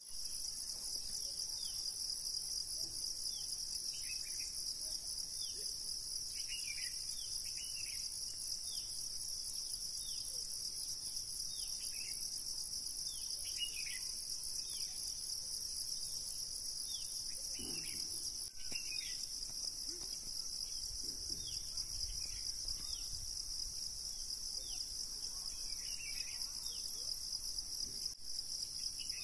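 Steady, high-pitched chorus of insects, with short falling bird chirps now and then over it.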